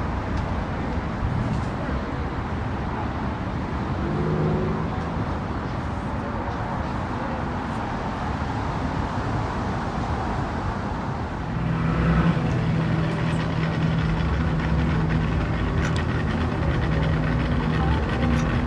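Vehicle engines running with general outdoor noise; about eleven seconds in, a closer engine sets in with a steady low drone and the sound grows louder.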